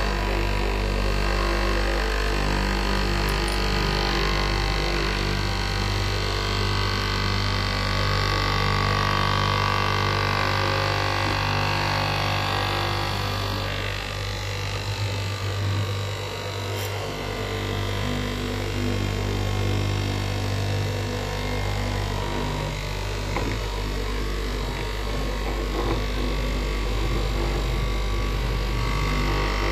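Straight-knife cloth cutting machine running: its electric motor hums steadily while the upright reciprocating blade cuts through a thick stack of fabric layers. The hum eases off slightly for a few seconds midway.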